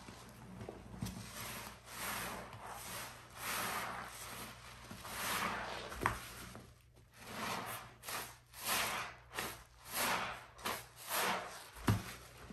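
Foam-soaked sponges loaded with pine paste squeezed and kneaded by bare hands, each squeeze a wet, foamy squelch. The squeezes come about once a second, then quicker and shorter, about two a second, near the end, with a sharp click twice.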